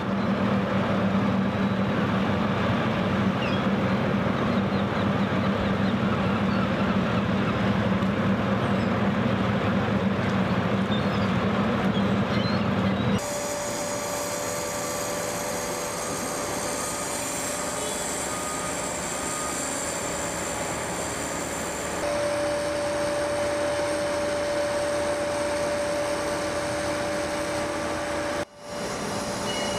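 Steady mechanical hum and machinery noise with a low drone, changing abruptly twice to a different steady hum with higher whining tones, with a brief drop-out near the end.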